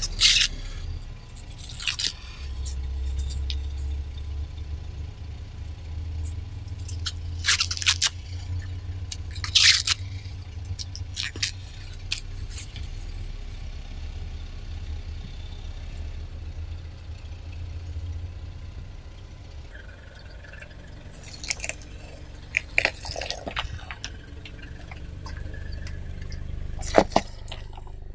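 Husks being stripped from ears of corn and handled, with irregular crisp tearing and rustling crackles over a low steady rumble.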